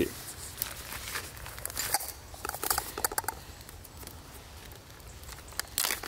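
Rustling and crinkling of packaging and dry leaves as containers are handled, with scattered light clicks and small knocks; a louder rustle comes near the end.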